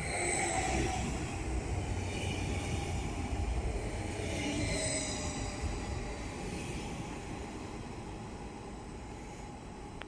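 Train running through the station: a steady rail rumble with high whining, squealing tones near the start and again about halfway, growing quieter toward the end.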